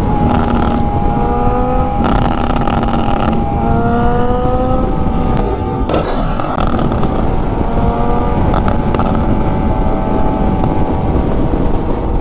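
Suzuki Bandit motorcycle's inline-four engine with a remapped ECU, rising in pitch several times with short breaks between, then holding a steadier note.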